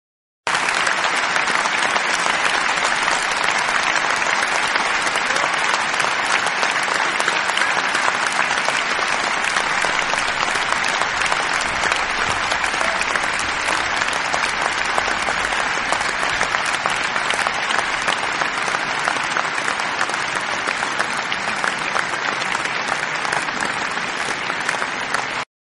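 Crowd applause: a dense, steady wash of many people clapping, which starts abruptly and cuts off suddenly near the end.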